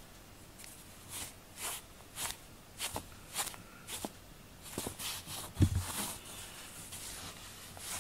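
A cat playing with a red cloth toy on a foam mat: a string of short soft rustling scuffs, about two a second, with one dull thump a little past halfway.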